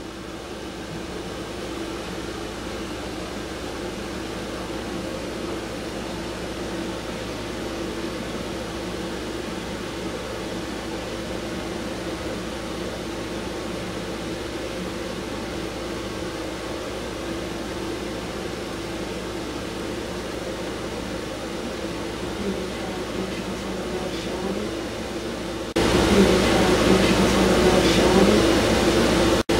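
Steady mechanical hum of air conditioners running, slowly swelling in level. About 26 seconds in, the hum suddenly jumps much louder, as if the gain were boosted.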